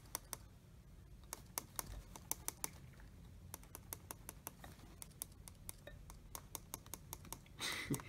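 Time-setting buttons on a clock radio clicking as the hour and minute buttons are pressed over and over, dozens of faint quick clicks at an uneven pace.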